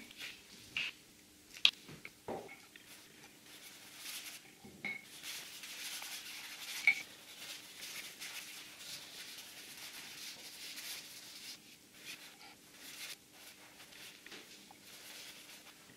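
A few sharp clicks and knocks as painting materials are handled, then a wide brush scrubbing paint across a flat board with a dry, scratchy swishing that eases off near the end.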